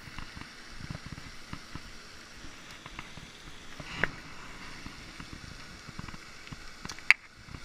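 Steady hiss of a pond fountain's spray, with small clicks and knocks from a spinning rod and reel being handled for a cast; a sharper click about four seconds in and a loud one near the end.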